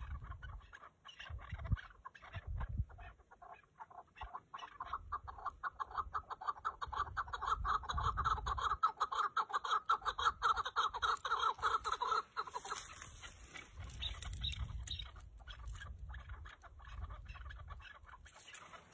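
Chukar partridges calling: scattered clucking notes build into a fast, steady chatter of repeated chuck notes that runs for several seconds and stops about twelve seconds in.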